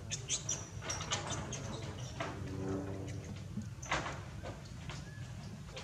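Young macaque monkeys squeaking in short high chirps, with a lower drawn-out call a couple of seconds in and a sharp click near four seconds, over a steady low background hum.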